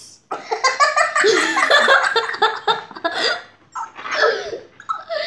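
Two children laughing hard, a long fit of laughter for the first few seconds and then shorter bursts of giggling.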